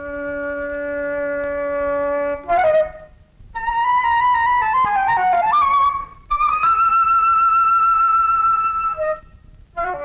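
Film-score music on a solo wind instrument. A long low note swells, then after a short note a melody falls in steps and slides downward. It settles on a long high note with vibrato, and the low held note returns near the end.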